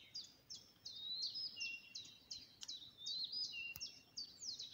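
Small songbirds singing in woodland: a steady run of short, high notes that sweep downward, several a second, with a few lower notes among them.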